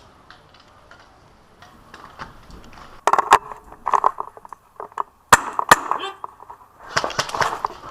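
Airsoft rifle shots heard as sharp cracks: one about three seconds in and two in quick succession a little past the middle, with faint voices between them.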